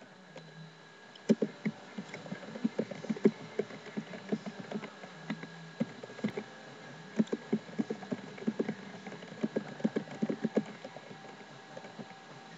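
Computer keyboard typing: irregular key clicks in quick runs with short pauses, over a faint steady hum.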